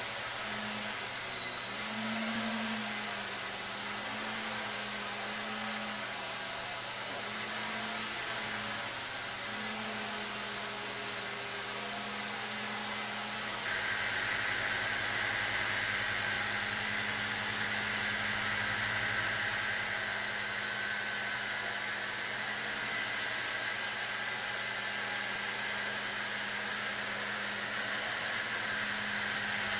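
Heli-Max Novus CX nano electric helicopter in flight, its small electric motors and counter-rotating main rotor blades whirring steadily with a hum that wavers in pitch. The whir gets louder and brighter about fourteen seconds in.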